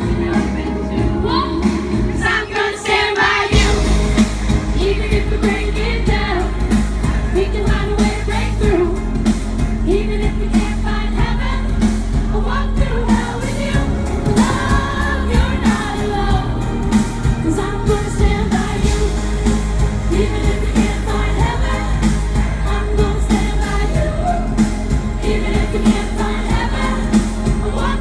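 Live pop song from a band and a female lead singer with choir-like backing vocals, played over a sound system at a sound check. The bass drops out for about a second near the start, then comes back in.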